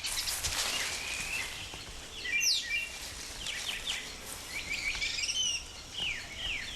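Birds chirping and calling in tropical forest ambience: many short notes, some sweeping down in pitch, over a steady background hiss.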